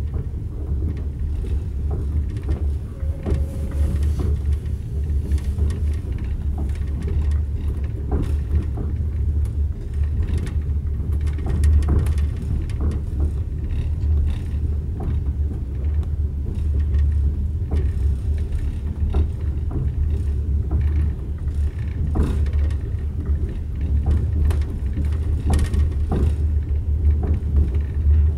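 Steady low rumble of a moving passenger train heard from inside the carriage, its wheels running on the rails, with scattered sharp clicks and knocks.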